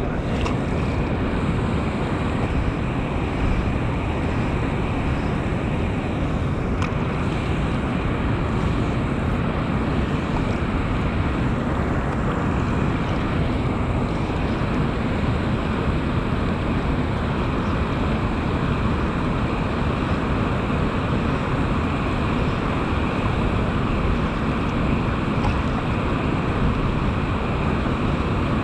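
Steady rush of water pouring out of a concrete spillway culvert into the pool below, with wind buffeting the microphone.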